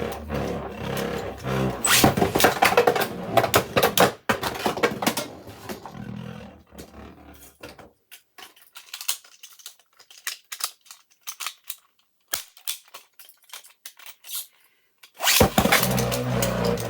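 3D-printed Beyblade tops spinning and clashing in a plastic stadium: steady scraping with rapid clicks of impacts. About eight seconds in it thins to scattered clicks, and a loud run of clashing and scraping starts suddenly near the end.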